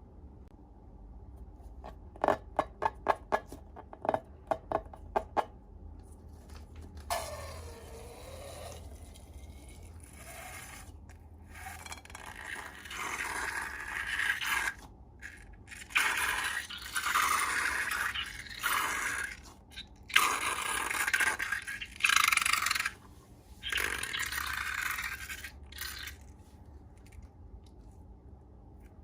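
Slime-making materials being handled: a quick run of about a dozen sharp clicks, then repeated bursts of scraping, hissing noise separated by short pauses.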